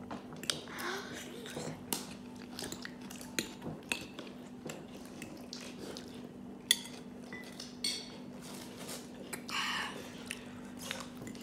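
Close-up eating sounds: fried chicken being bitten and chewed, with scattered short clicks and knocks. There is one louder click a little before seven seconds.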